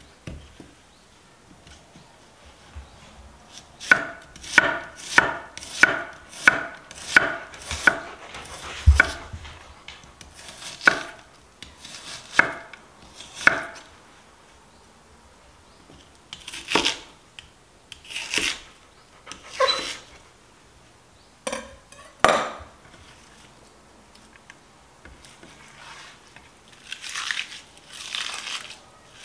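Knife chopping food on a cutting board: a steady run of chops at about one and a half to two a second, then slower, scattered cuts.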